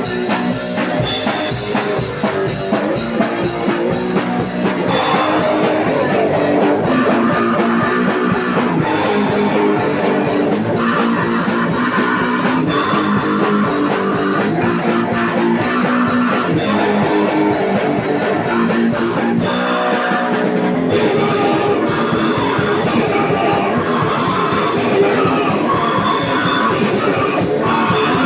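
A grindcore/noise band playing live: heavily distorted electric guitar, bass guitar and a pounding drum kit, loud and dense throughout, with a short break about two-thirds of the way through before the band crashes back in.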